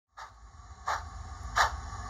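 Hornby OO-gauge model steam locomotive running with sound: two evenly spaced steam chuffs over a low, steady hum. The sound cuts in just after the start.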